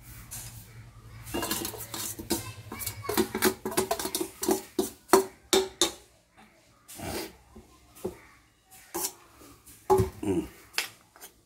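Steel spoon clinking and scraping against a steel bowl and plate while masala is scooped and spread, a string of irregular taps, some with a short metallic ring.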